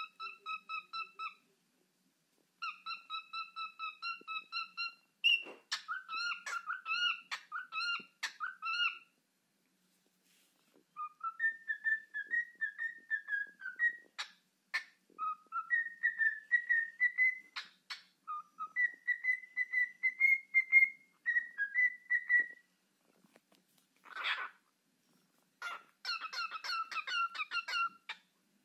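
Cockatiel singing its whistled song: runs of fast repeated whistle notes, some lower and some higher and warbling, broken by short pauses. A few sharp clicks fall between the notes, and there is one brief harsher note about three-quarters of the way through.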